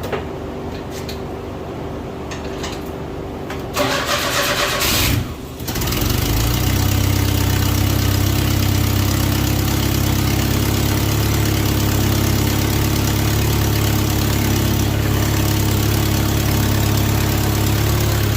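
1990 Chevy S10 pickup engine cranked by the starter about four seconds in. It catches after a second and a half of cranking and settles into a steady idle, with the exhaust leak the owner notes.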